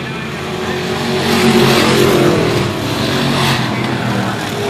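Old-school dirt-track stock cars racing past at full throttle, engines loud. The sound swells as a car goes by, loudest from about one and a half to three and a half seconds in, and rises again near the end as another car passes.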